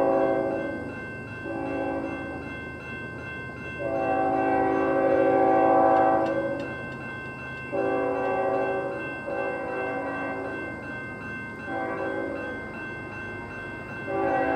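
Air horn of a CN freight locomotive blowing a series of blasts for a grade crossing, each a steady multi-note chord. The blasts vary in length; the longest, about three seconds, starts about four seconds in, with several shorter ones after it. A crossing-signal bell rings steadily beneath.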